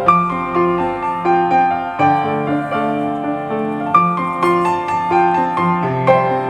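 Background piano music: a gentle melody over a chord that changes about every two seconds.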